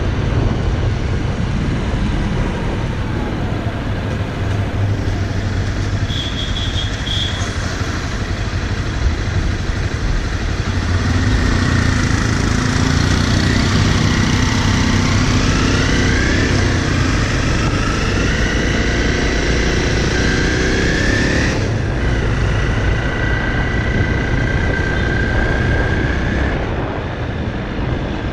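Honda CRF dirt bike engine running under way, with wind noise over the microphone. Its pitch climbs steadily for several seconds past the middle, drops suddenly about two-thirds of the way in, then holds steady.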